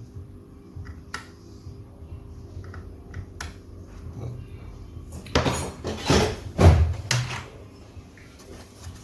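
Laptop parts and tools being handled on a workbench: light plastic clicks and knocks, then a couple of seconds of louder clattering and rustling about five seconds in.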